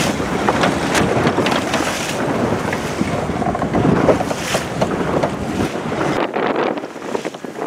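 Wind buffeting the microphone over the wash of water along a sailboat's hull, with scattered short knocks and clicks. The low wind rumble drops away about six seconds in.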